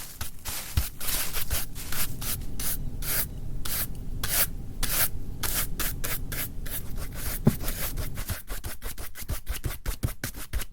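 Rapid repeated rubbing or scraping strokes, several a second, coming faster toward the end.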